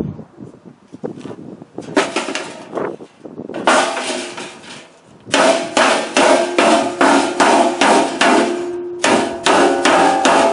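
Hammer blows on a stainless steel chimney cap, bending the metal: quick strikes about three a second in several runs, each with a metallic ring.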